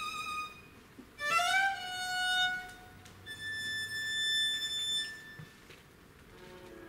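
Solo viola d'amore played with the bow: a slow line of long, sustained notes with short gaps between them. The second note slides up into its pitch, the third is higher still, and a lower note begins near the end.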